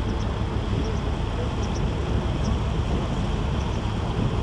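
Steady low drone of a river cruise boat's engine under way, with an even rush of noise over it.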